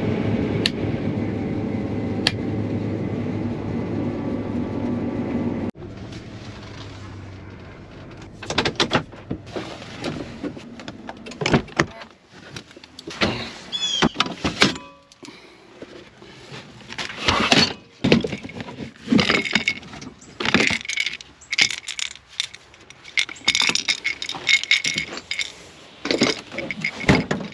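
Combine harvester running steadily, heard from inside the cab, cutting off abruptly about six seconds in. It is followed by a long run of irregular clinks, knocks and rattles.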